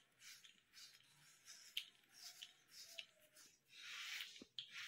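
Cartridge razor scraping through stubble under shaving foam in short, faint rasping strokes, with a longer, louder stroke about four seconds in.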